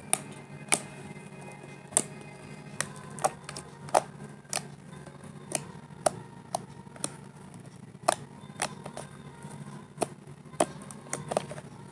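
Freshly made foamy pink slime being squeezed and pressed by hand, giving irregular sharp clicking pops, about one or two a second.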